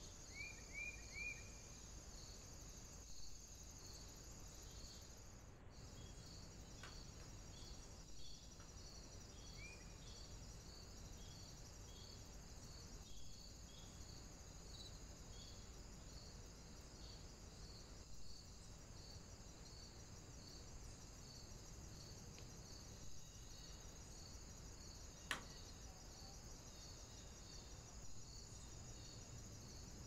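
Faint, steady insect chirping: a high pulse repeating about one and a half times a second over a continuous high trill. A few short bird chirps come near the start, and a single sharp click sounds late on.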